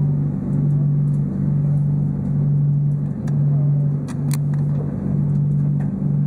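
Engine drone of an underwater-viewing boat, heard from inside its submerged viewing cabin: a steady low hum that dips in a regular beat about once a second. A few light clicks come in around the middle.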